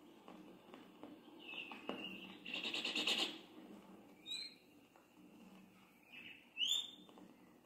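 Euphonias (gaturamos) singing: short whistled notes broken by a quick buzzy trill about two and a half seconds in, then two sharp, loud, bright calls, one near the middle and one near the end.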